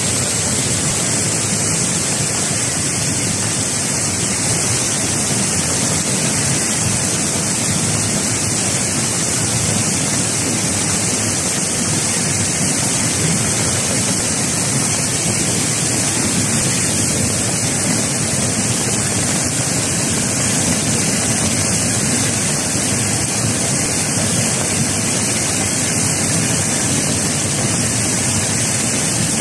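Muddy flash-flood water rushing and churning down a street, a loud steady rush of turbulent water.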